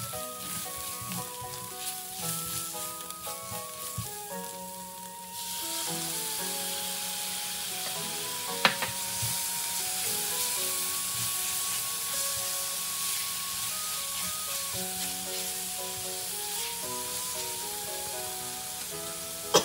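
Onion and spice masala sizzling in a hot frying pan as a spatula stirs it. About five seconds in, chopped tomatoes go into the pan and the sizzle gets much louder. There is one sharp knock about nine seconds in, and background music plays throughout.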